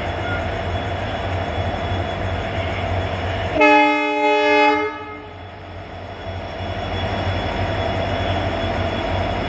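EMD WDG4D and WDG4 diesel locomotives humming steadily under load as they haul a goods train, with one loud blast of the locomotive's air horn a few seconds in, lasting a little over a second. The engine hum dips after the horn and gradually returns.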